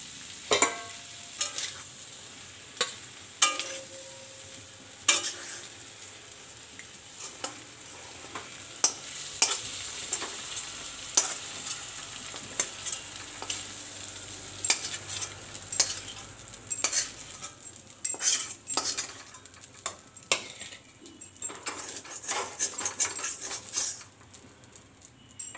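Prawns frying in hot oil in an iron kadai, sizzling, while a metal spatula scoops them out with repeated scrapes and clinks against the pan. The scraping comes thickest in the second half, and the sound drops away a couple of seconds before the end.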